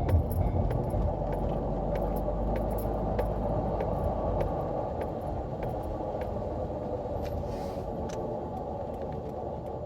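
Honda StepWGN running on the road with a steady drone over the road rumble, the abnormal noise the owner expects is a failing wheel hub bearing. The deepest rumble drops away about halfway through and the noise eases off slightly.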